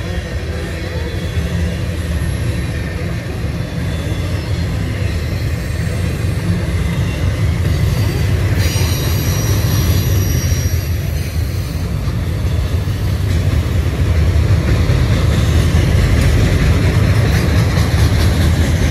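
Freight train of tank cars and autorack cars rolling past, a steady low rumble of steel wheels on the rails. A high-pitched wheel squeal sounds for about three seconds near the middle, and the rumble grows a little louder in the last few seconds.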